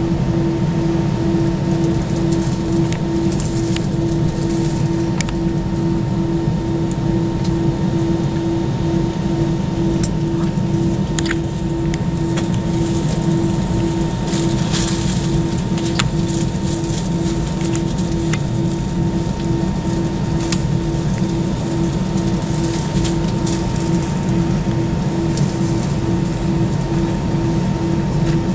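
Airbus A320's CFM56 engines running at low power with no build-up of thrust: a steady low rumble with a hum that pulses evenly about one and a half times a second.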